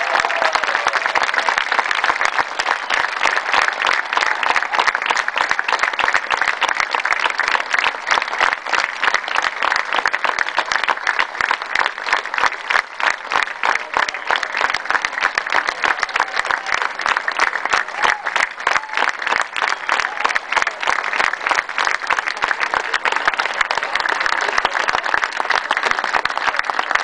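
Stadium crowd applauding: a dense, steady clapping of many hands.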